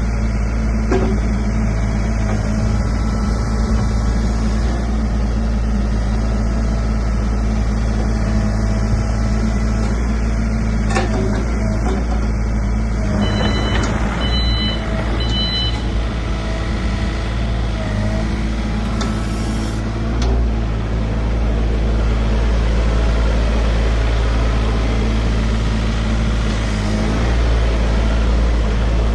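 Sany SY35U mini excavator's diesel engine running steadily, with a few short high beeps about halfway through.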